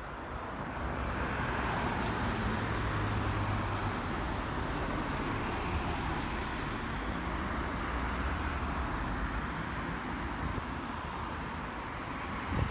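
Road traffic on a busy town avenue: cars driving past close by, a steady wash of tyre and engine noise that swells about a second in as vehicles approach.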